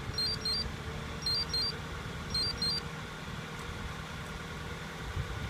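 2017 Mini Clubman engine idling steadily, just started by remote starter. Over it, the two-way remote starter fob gives its start confirmation: three short runs of high beeps about a second apart in the first three seconds.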